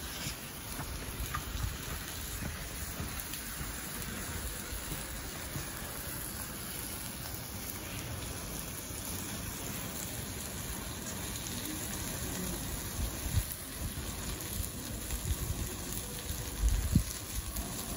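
A burning car: a steady crackling hiss from the fire, with a few short low thumps near the end.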